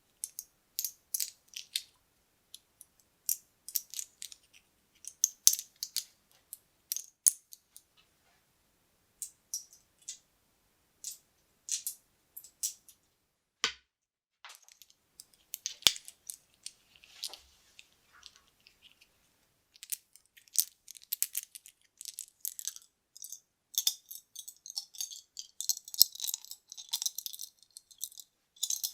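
Small buttons clicking and tapping against each other in quick scattered clusters, sharp and bright, building near the end into a dense, continuous rattle as they are shaken or stirred together.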